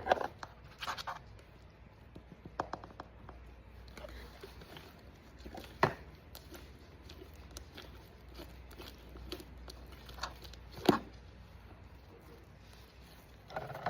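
Slime being mixed with shaving cream: scattered soft sticky clicks and pops, with a few sharper knocks, over a low steady hum.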